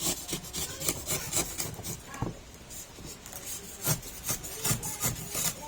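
Sharp knife blade scraping and cutting along the resin-hardened carbon fibre edge of a fairing, trimming off the excess in short, irregular rasping strokes.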